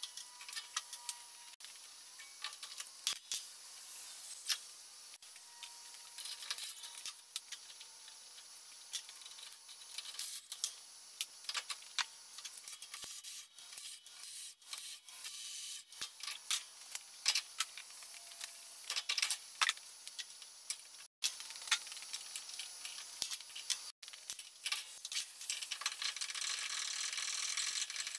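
Metal parts of a Dana 44 front hub and knuckle clinking and rattling as they are handled and taken apart, with many small scattered clicks and knocks. The sound cuts out briefly twice late on.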